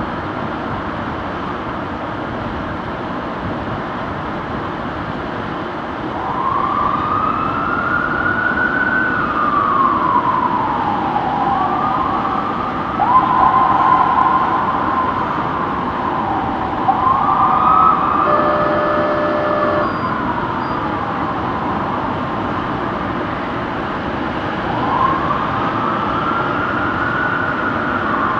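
Fire truck sirens wailing in slow rising and falling sweeps, coming in about six seconds in over steady engine and street noise, two wails overlapping at times. A short horn blast sounds about eighteen seconds in.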